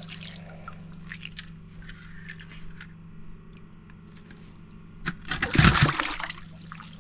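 Water sloshing and dripping in an ice-fishing hole as a released northern pike is worked back into the water, with one louder splash about five seconds in. A steady low hum runs underneath.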